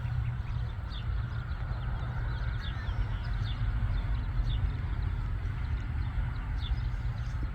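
Small birds chirping repeatedly in short, quick notes over a steady low rumble.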